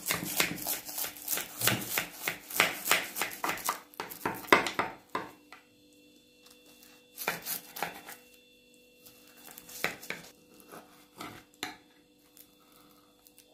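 A knife cutting through a crisp baked börek made from baklava phyllo sheets, the layers crunching and crackling. A dense run of crunches lasts about five seconds, then a few scattered crunches follow.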